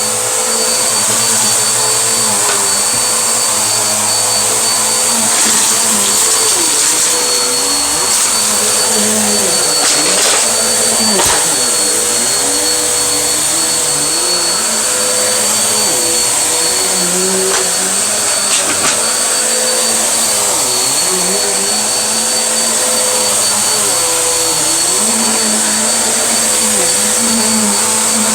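Vacuum cleaner running steadily, with a steady whine and a hiss of air, and lower tones that waver up and down. A few brief clicks come through about a third of the way in and again about two thirds in.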